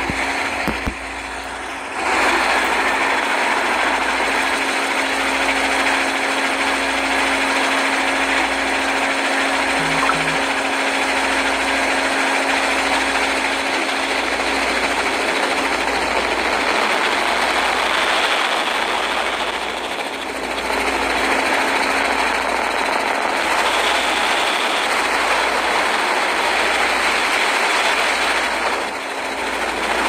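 Motorboat running steadily underway, its engine hum under a loud, constant rush of noise.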